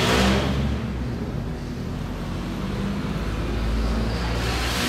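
Road traffic: a steady low engine rumble, with passing vehicles swelling up at the start and again near the end.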